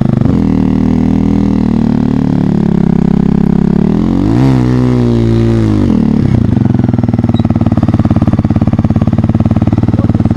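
Motorcycle engine running as the bike slows down, with a brief rev about halfway through that rises and falls, then idling steadily with an even pulse.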